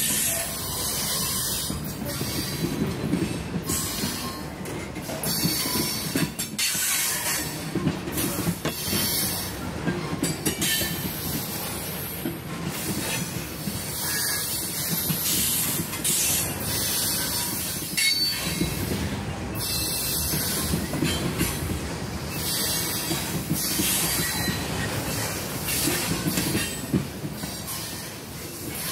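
Freight train rolling through, cars clattering over the rails with steel wheels squealing in high-pitched whines as it crosses over onto another track. Wind buffets the microphone throughout.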